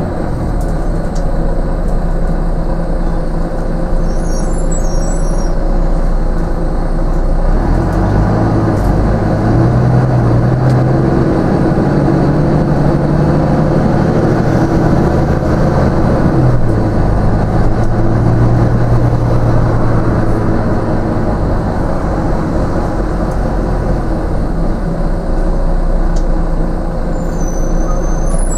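Volvo B9TL double-decker bus's six-cylinder diesel engine running steadily, heard from inside the passenger saloon. Its note rises and strengthens about eight seconds in and drops away again about sixteen seconds in.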